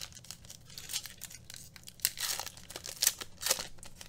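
A 2020-21 Panini Mosaic soccer card pack's wrapper being torn open and crinkled by hand, in several short rustles, the loudest about two seconds and three and a half seconds in.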